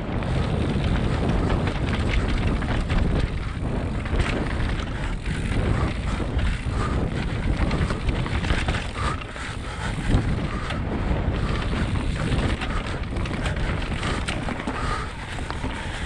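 Mountain bike descending a dirt singletrack at speed: wind buffets the camera's microphone, and the bike knocks and rattles over the bumps of the trail.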